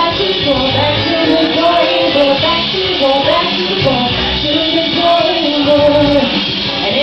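Live band music with a woman singing into a microphone over a low bass pulse, recorded from the audience on a camera's microphone.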